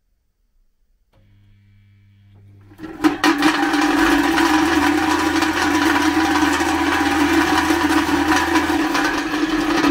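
Home-made vibratory tumbler on its first run. A washing-machine motor hums as it starts up, and from about three seconds in the spring-hung steel barrel, loaded with bolts and hammers, shakes with a loud, steady metallic clatter and rattle, really noisy with hammers in it instead of tumbling media.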